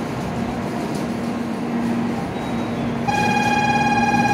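Low steady hum of a standing N700A Shinkansen at the platform. About three seconds in, the platform's electronic departure bell starts a steady, fast-pulsing ring, the signal that the doors are about to close and the train will leave.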